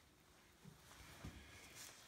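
Near silence: room tone with a couple of faint low knocks.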